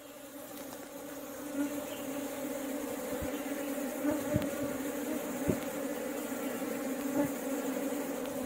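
A honeybee colony humming, a dense steady buzz that swells over the first few seconds as the clustered bees are approached. Several brief louder buzzes come through as single bees fly close past.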